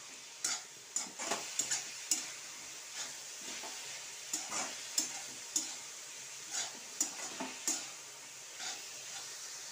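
Metal spatula stirring fenugreek greens and peas in a metal kadhai, with irregular scrapes and clacks against the pan over a steady sizzle.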